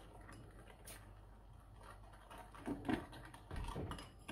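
A whisk stirring a thin milk-and-egg custard mixture in a ceramic bowl: faint soft taps and scrapes against the bowl, a little louder in the second half.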